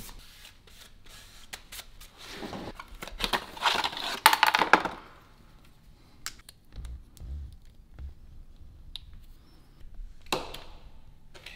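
Small clicks and light knocks of parts being handled on a workbench, with a louder rushing noise about four seconds in that lasts about a second.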